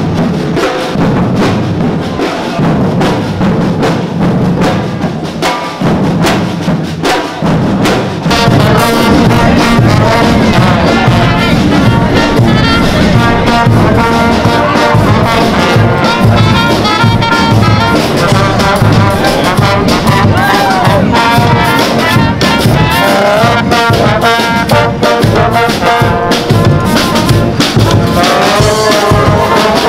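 Street band music: drums pounding at first, then from about eight seconds in a marching brass band takes over, trumpets and trombone playing a tune over a steady drum beat.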